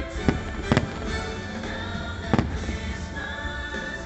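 Aerial firework shells bursting with sharp bangs, three in all: two within the first second and one a little past halfway, over show music that plays throughout.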